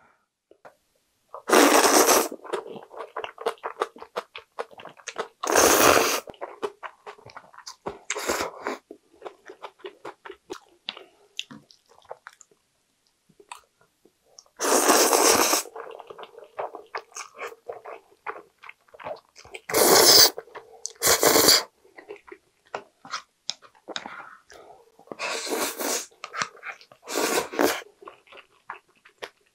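Close-up eating of thick jjajang ramen noodles: about seven loud slurps, each about a second long, as mouthfuls of saucy noodles are sucked in, with wet chewing and mouth clicks between them.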